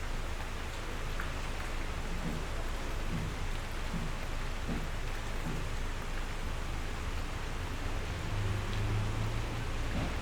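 Steady rain falling, an even hiss of drops. A low rumble comes in near the end.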